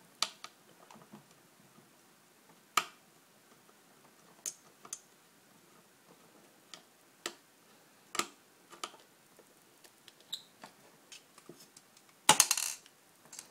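Small Phillips screwdriver and the plastic parts of an Xbox 360 controller clicking and tapping while a tiny screw is backed out: scattered sharp clicks, with a louder clatter about twelve seconds in.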